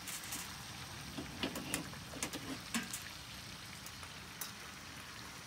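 Fish fillets frying in oil and melting butter in a skillet, a steady sizzle, with several light clicks and knocks in the first three seconds or so.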